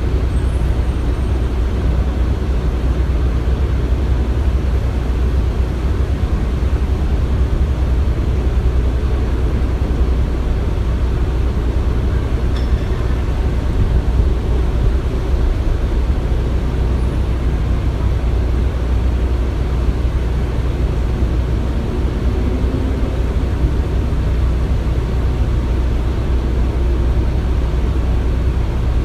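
Construction-site ambience: a steady, low engine rumble of heavy machinery running, with no distinct bangs or impacts.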